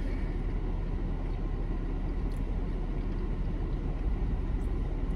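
Steady low rumble of a car engine idling, heard inside the car's cabin.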